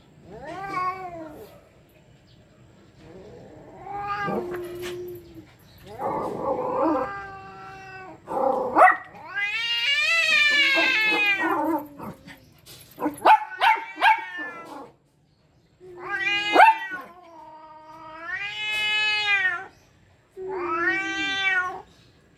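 Domestic cat caterwauling at another cat in an aggressive face-off: about nine long, drawn-out yowls that rise and fall in pitch, the longest lasting a couple of seconds, with some rougher, growly stretches between them.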